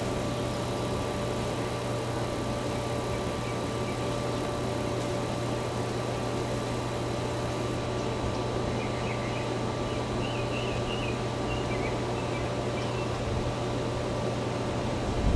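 A steady machine-like hum and hiss with several constant tones, and a few faint high chirps about two-thirds of the way through.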